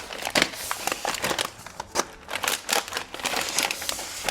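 Bags of dried pasta crinkling and rustling as they are handled and pulled out of a pantry cabinet, in quick irregular crackles.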